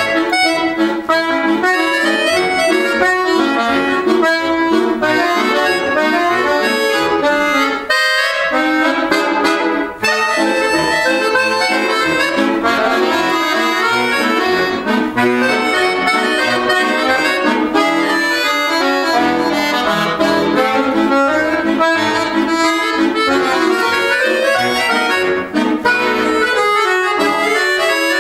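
Accordion music: a fast instrumental tune of quick, dense notes with chords underneath, played without a break.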